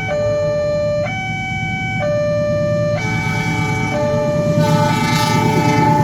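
Railway level-crossing warning siren sounding a two-tone hi-lo wail, switching pitch about once a second. From about halfway, a rising rumble and hiss and another steady tone build under it as a train approaches the crossing.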